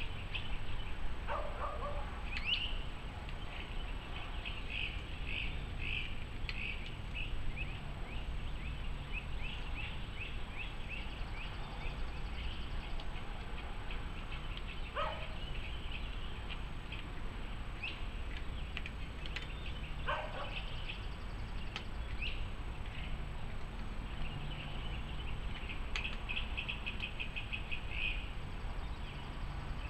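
Wild songbirds chirping and trilling continuously, with a quick run of repeated notes near the end and a few lower, downward-falling calls scattered through, over a steady low background hum.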